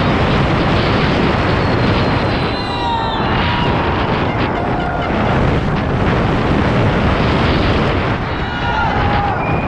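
Rushing wind on a helmet-mounted action camera's microphone, mixed with the rumble and rattle of a Specialized Stumpjumper 29 mountain bike running fast down a dirt downhill track. Voices of spectators shout briefly about three seconds in and again near the end.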